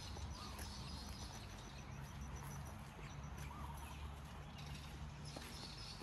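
Footsteps walking along a wet, muddy forest trail, faint and regular. A faint high, rapidly repeated chirp sounds through the first half.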